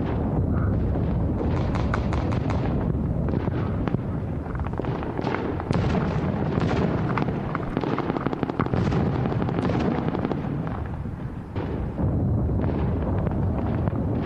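Airsoft guns firing in clusters of rapid shots, over a steady low rumble.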